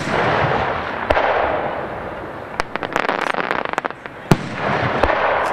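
Aerial firework shells bursting in the sky: sharp bangs about a second in and again near four and five seconds, a quick run of crackling in between, and a rushing echo after each burst.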